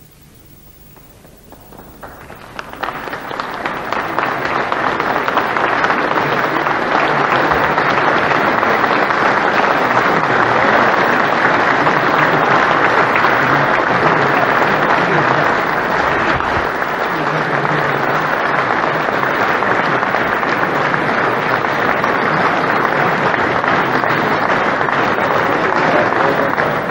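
Large crowd applauding as a standing ovation. The clapping builds over the first few seconds, holds steady, and begins to ease off near the end.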